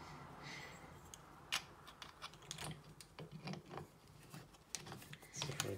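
Faint, scattered clicks and taps of small plastic and metal faucet parts being handled as a cleaned nozzle is fitted back onto a kitchen faucet's pull-down spray head.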